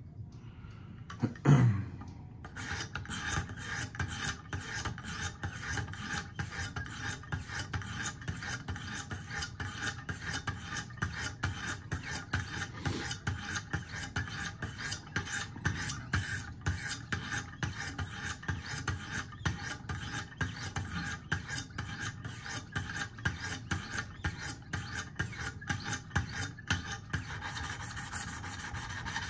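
Wicked Edge sharpening stones rasping in rapid, even strokes along a steel knife edge, grinding out a remaining chip in the recurve blade. A single loud thud comes just before the strokes begin.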